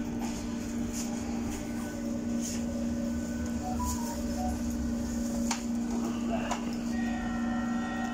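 Busy underground station: a steady low hum, passengers' footsteps and voices passing by, and from near the end the steady whine of a Berlin U-Bahn train's electric motors at the platform.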